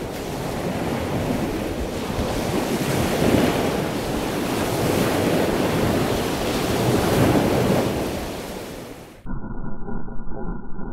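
Rough surf churning and breaking against jetty rocks in swells, with wind buffeting the microphone. About nine seconds in the sound cuts off abruptly and gives way to a muffled rumble.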